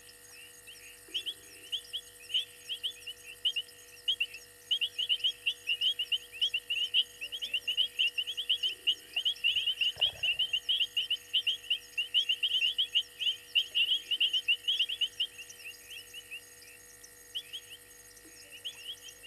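Night chorus of frogs calling at a waterhole: many short, high chirps overlapping in an uneven rhythm, densest through the middle. A single dull thump sounds about ten seconds in.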